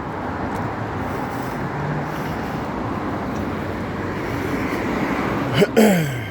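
Road traffic: a vehicle passing along the street, its steady tyre and engine noise swelling slowly. About five and a half seconds in, a short loud cry falls sharply in pitch.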